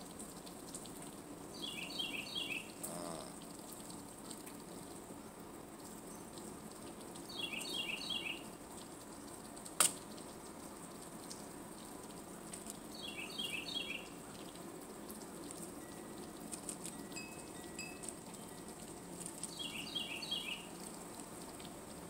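A short phrase of quick high chirps, a bird calling, repeated four times about every six seconds over a faint steady hiss and high whine. A single sharp click comes about ten seconds in.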